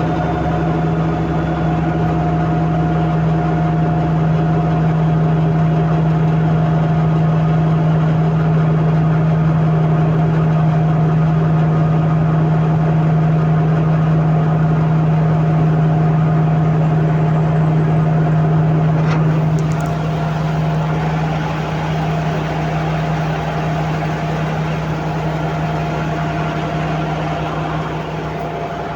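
Komatsu D85ESS bulldozer's diesel engine running steadily with a strong low hum. There is a short click about twenty seconds in, after which the sound drops a little.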